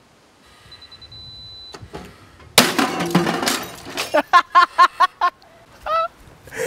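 A steady high beep from the release pin's warning siren, then about two and a half seconds in a microwave oven dropped from a tree branch hits the ground with a loud crash of breaking glass that dies away within a second.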